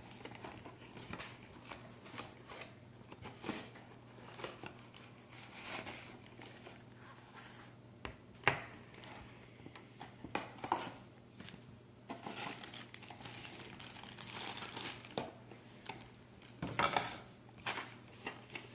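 Packaging being opened and handled: irregular crinkling, rustling and tearing of paper and plastic, with a few sharper clicks and scrapes.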